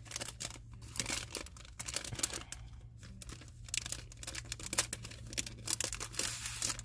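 Clear plastic packaging crinkling and rustling in irregular bursts as a pack of paper envelopes is handled, over a low steady hum.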